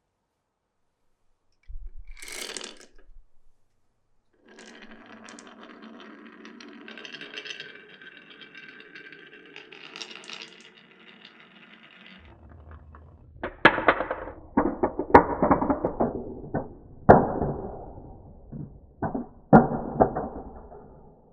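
Glass marbles on a wooden marble run: a marble rolls steadily along the track for several seconds, then a quick run of sharp wooden clacks as marbles drop and knock through the pieces.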